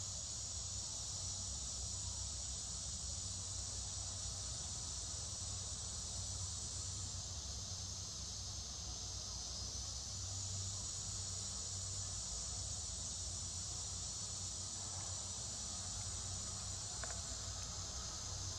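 A steady chorus of insects in undergrowth, a continuous high-pitched drone with no breaks, over a low steady rumble.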